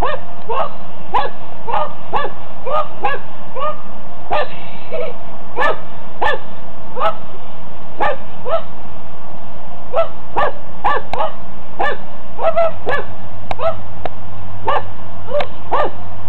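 Puppy barking over and over in play: short, high-pitched yips about one to two a second.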